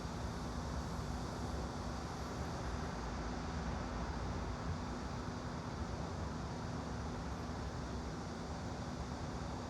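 Steady, even background noise with a constant low hum and no distinct events: a white-noise ambience bed.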